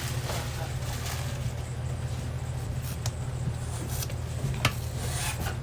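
Steady low hum of kitchen equipment, with a few sharp clicks and taps of utensils while a wrap is being assembled; the loudest click comes about four and a half seconds in.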